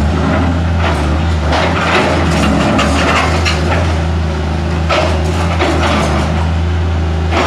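Caterpillar tracked excavator's diesel engine running steadily while its bucket breaks and shifts concrete-block rubble, with cracking and crunching of debris at intervals, loudest a couple of seconds in and again about five seconds in.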